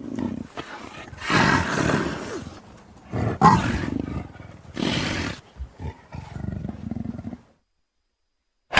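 Big cat growling in a run of loud, rough calls, the loudest a few seconds in. It goes silent for about a second near the end before another call starts.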